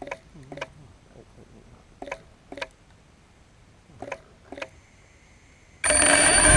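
Veho Muvi Q-1 quadcopter drone signalling with pairs of short beeps, about two seconds apart, then a faint steady tone; near the end its rotors start abruptly and spin up loudly, rising in pitch.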